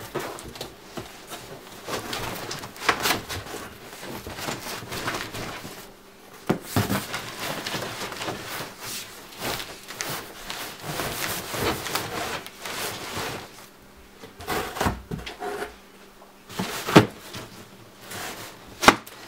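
Cardboard cartons scraping and rubbing against each other as a large inner box is pulled out of its outer shipping box, with irregular rustling and several knocks and thumps, the sharpest near the end.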